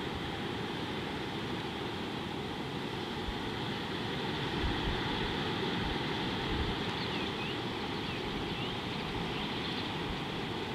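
Steady outdoor ambience of wind hissing and buffeting the microphone, with a few low rumbling gusts. Faint short bird chirps come in several times in the second half.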